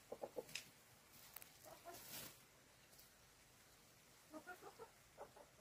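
Chickens clucking in short, quiet notes: a quick run of about four at the start, a few more around two seconds in, and another run near the end.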